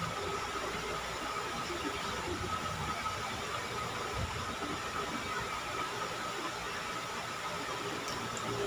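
Soft mouth sounds of someone eating by hand, chewing food, under a steady hiss with a thin high tone throughout.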